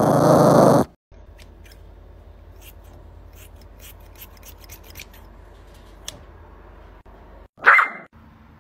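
Small grooming scissors snipping a Yorkshire terrier's long coat: a run of short, sharp snips over a faint steady hum. Before them there is about a second of a loud rough sound, and near the end a short loud cry that rises and then falls.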